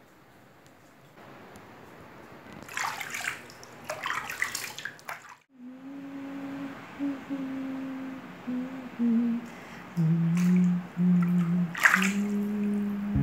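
Sea waves washing and surging, heard through an open window. About halfway through, a slow, low melody of held notes that step up and down comes in over a few more rushes of water.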